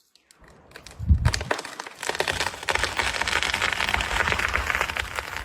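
A heavy thump about a second in, then dense, continuous cracking and crunching of wood splintering.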